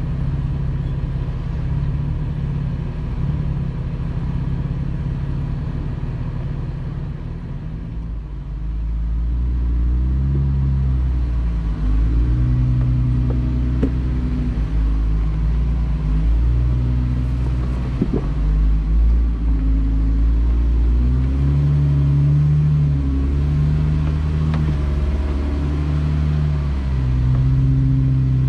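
Jeep Wrangler engine running at low revs with a deep rumble, the throttle eased on and off so the pitch steps up and down every second or so. It grows louder about ten seconds in.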